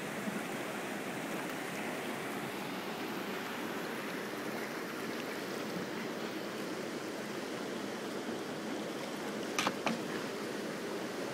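Steady rush of whitewater river rapids, with one short, sharp knock near the end.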